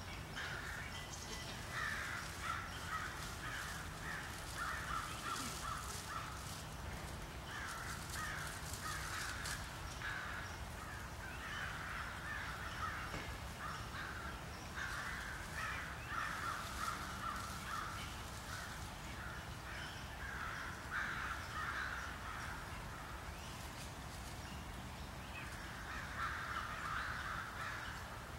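Crows cawing again and again in short runs of calls, over a steady low rumble.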